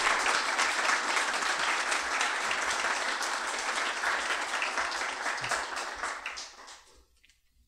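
Audience applauding, a dense patter of clapping hands that tapers off and dies away near the end.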